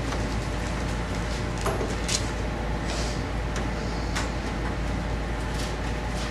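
Steady low electrical hum and hiss of the room recording, with a few soft, brief paper rustles about two, three and four seconds in: Bible pages being turned.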